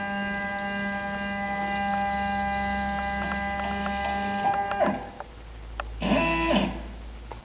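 Stepper motors of a Docado FC-1370 CNC hot-wire foam cutter whining at several fixed pitches as the axes travel, cutting off sharply about five seconds in. About a second later comes a short burst of whine that slides down and up in pitch as the axes speed up and slow down.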